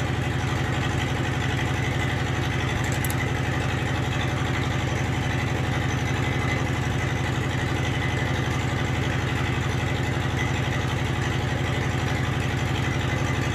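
An engine idling steadily: a constant low drone with a fast, even pulse.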